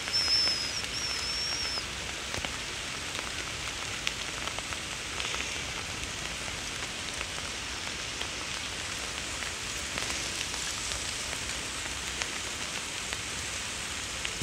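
Steady rain falling, an even hiss throughout. A brief high, wavering whistling call sounds over it in the first two seconds.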